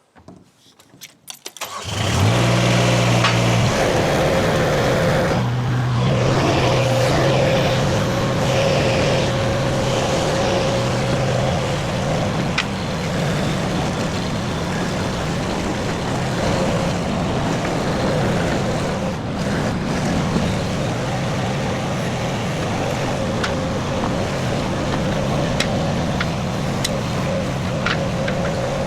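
Derette V1000 mini skid steer's engine starting about two seconds in, then running steadily with a brief dip in speed a few seconds later.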